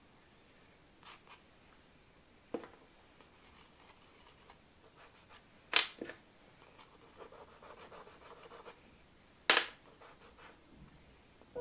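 Faint scratching and rubbing of soft pastel on paper, with a few light ticks. Two sharp clicks, a little under four seconds apart, come as a small pastel or conté stick is put down on the wooden tabletop.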